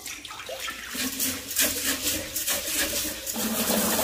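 Cloudy rice-rinsing water poured from a rice cooker's inner pot, splashing into a kitchen sink. About three seconds in, the tap starts running into the pot as the rice is rinsed again, a denser, steadier stream.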